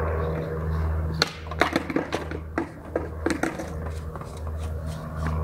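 Oil filter housing with its new cartridge clicking and knocking against parts as it is handled and reached up into place under the car, a cluster of sharp clicks between about one and three and a half seconds in. A low steady hum with a slow pulse runs underneath.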